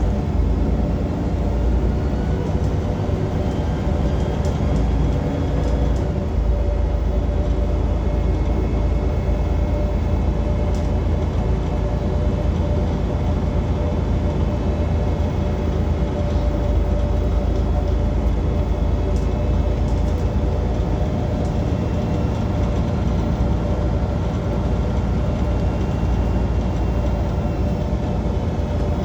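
Transperth bus TP1230 running, with a loud, steady low rumbling and a steady engine hum through the whole stretch.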